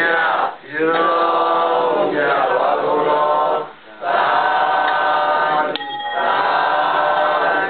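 Buddhist devotional chanting by many voices together in unison, in drawn-out phrases broken by short breath pauses about half a second in, near four seconds in and again near six seconds.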